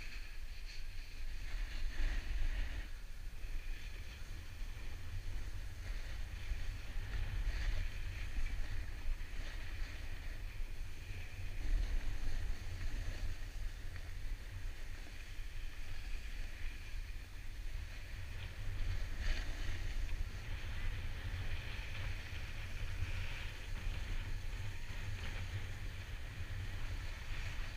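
Wind buffeting the microphone while riding downhill on a snowboard or skis, a steady low rumble, with the hiss and scrape of edges sliding over packed, groomed snow that swells and fades with the turns.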